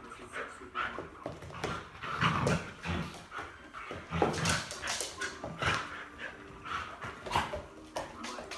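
Rhodesian Ridgeback playing and vocalizing: a string of short, irregular whines and yips with the odd bark.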